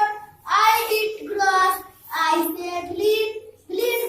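A child's voice in a sing-song chant, repeating a short word about five times with short breaks between, as when reciting an animal's sound over and over.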